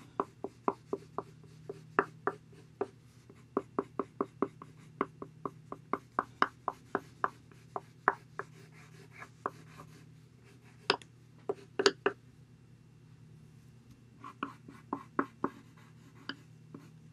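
A Prismacolor colored pencil sketching on paper in short, quick scratching strokes, about three a second. The strokes pause briefly about ten seconds in, and again for a longer stretch a little later.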